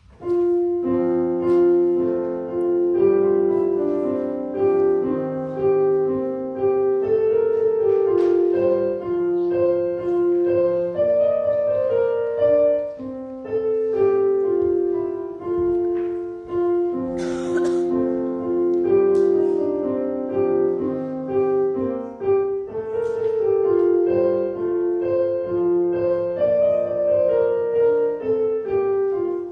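Piano playing a slow, gentle piece in sustained chords under a melody, starting about half a second in.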